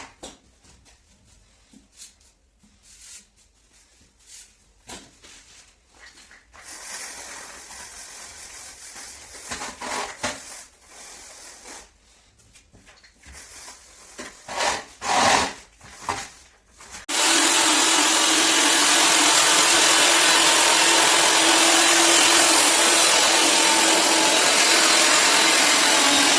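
Renovation work: intermittent scraping and rubbing of hand work for about two-thirds of the way, then a power tool starts abruptly and runs steadily with a loud whirring hiss.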